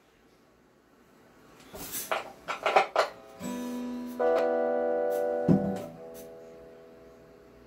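Acoustic guitar being handled, with a few sharp knocks and scrapes against its body. Then three chords are strummed about a second apart and left to ring, the middle one loudest, fading away over the last couple of seconds.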